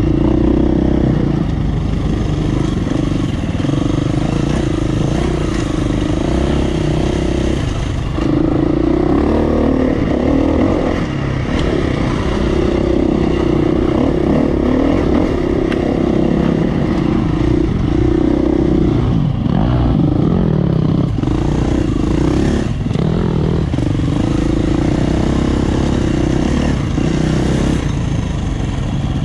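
Dirt bike engine running under the rider's changing throttle as it is ridden over a rough dirt trail, its pitch and loudness rising and falling every few seconds, with occasional knocks and rattles from the bike over bumps.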